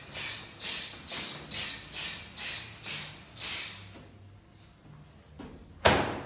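Sharp hissing exhalations pushed out with each punch of a Lima Lama strike drill, about two a second, eight in a row, stopping about four seconds in. Near the end, one sharp smack.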